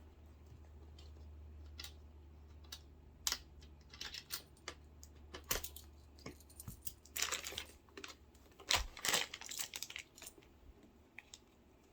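Irregular small plastic clicks, taps and rattles of hands working a screw-on connector cap loose on a portable air-conditioner battery. The clicks are sparse at first and come in dense clusters through the middle.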